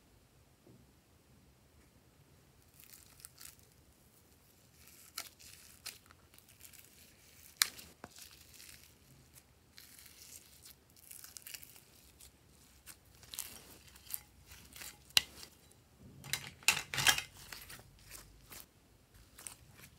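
Blue glitter slime being peeled off a plastic shell-shaped tray: quiet, sticky crackling and tearing, with scattered sharp clicks and a louder cluster of crackles about three-quarters of the way through.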